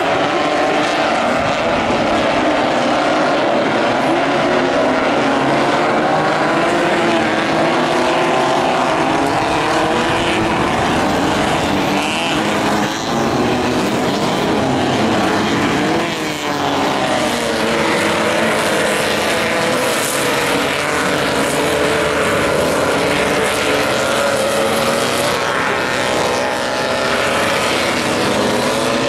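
Engines of several Super 1600 class off-road race buggies running hard on a dirt course. Several engine notes overlap and rise and fall in pitch as the cars accelerate, brake and pass, with sweeping pitch changes around the middle.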